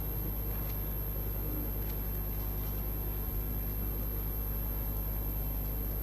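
Steady low hum and rumble of a large hall's room tone, with a few faint clicks.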